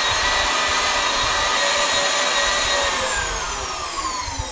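Electric tilt-head stand mixer whisking two eggs at top speed: a steady high motor whine that winds down in pitch from about three seconds in as the mixer is switched off.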